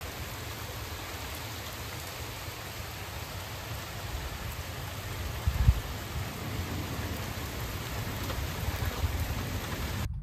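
Heavy rain pouring down in a thunderstorm, with a steady low rumble and one short, loud low thump about halfway through. It stops abruptly near the end.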